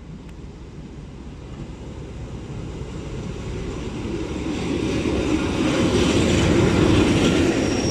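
Lxd2 narrow-gauge diesel locomotive running in with its tourist carriages, engine and wheels on the rails growing steadily louder as it approaches and passes close, loudest as the locomotive goes by about six to seven seconds in.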